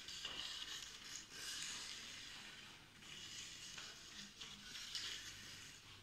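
Faint taps of a field hockey stick on the ball, with swells of hissy scraping as the ball rolls and is pushed across a tiled floor.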